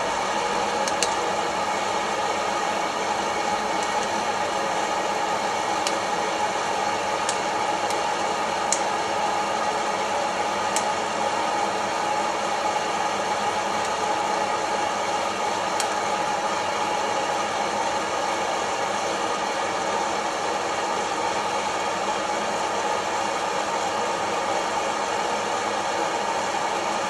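Kaffelogic fluid-bed coffee roaster running, its fan blowing a steady hot-air rush through the tumbling beans. A handful of sharp clicks stand out in the first half.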